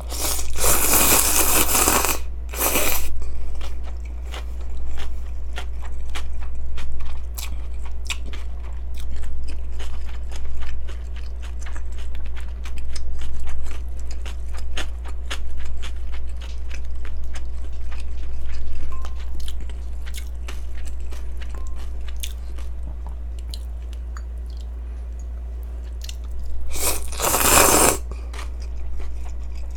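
Close-miked eating of cold yeolmu naengmyeon: a loud slurp of noodles at the start, then a long run of chewing with crisp crunching clicks from the young radish kimchi, and a second loud slurp, sipping from a small bowl, near the end. A steady low electrical hum sits underneath.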